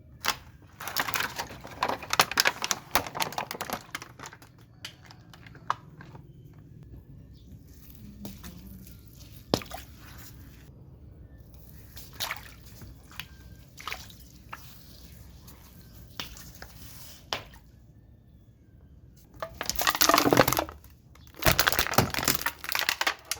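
Things being crushed under a car's tyre: clusters of cracking and crackling, with single snaps scattered between them and two dense, loud bursts of crunching near the end.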